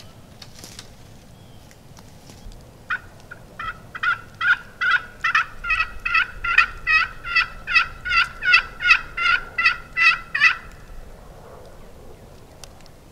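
A long series of turkey yelps, about twenty evenly spaced notes at roughly two or three a second. They start soft and grow loud, then stop abruptly.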